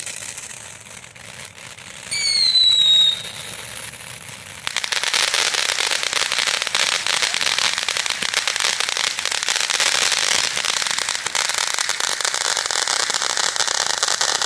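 Ground firework fountains hissing and spraying sparks. About two seconds in, a loud whistle sounds for about a second, falling slightly in pitch. From about five seconds in, a dense crackling hiss sounds as a fountain erupts.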